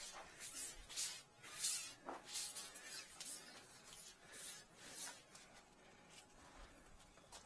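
Faint, irregular scuffs and rustles: a dozen or so short hissy noises in the first five seconds as a tire is handled on a concrete floor, then quieter.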